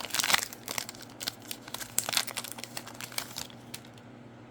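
Plastic wrapper of a Prizm football trading-card pack crinkling and tearing as it is ripped open. The crackle is dense for about three and a half seconds, then thins to a few light clicks.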